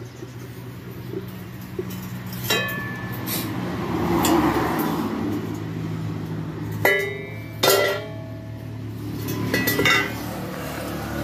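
Steel parts of a homemade waste-oil stove clinking and knocking as the stove is handled, about half a dozen ringing metal knocks, over a steady low hum.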